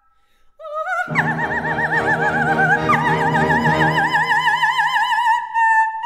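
Coloratura soprano singing an opera aria with orchestra. After a moment's near silence her voice slides upward, the orchestra comes in about a second in, and she sustains long, wide trills on high notes before settling onto a steady held high note near the end.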